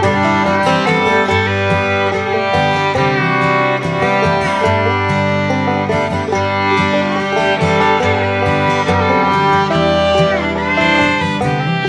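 Background music: a bluegrass-style tune on fiddle and guitar.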